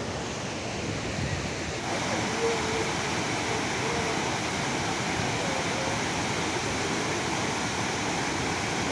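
Pykara Falls, a waterfall, flowing: a steady rush of falling water that grows slightly fuller about two seconds in, with faint voices in the background.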